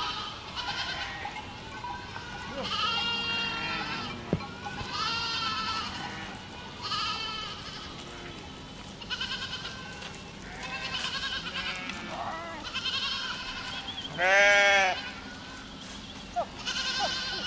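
A herd of goats bleating: many wavering calls, one after another and sometimes overlapping, with one much louder, lower bleat about three-quarters of the way through.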